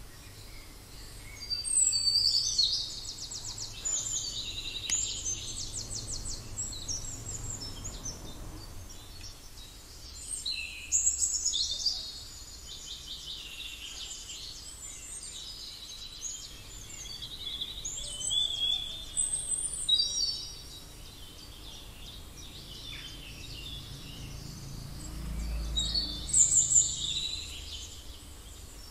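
Birds singing in repeated bouts of quick, high trills and chirps a few seconds apart, over a faint low hum.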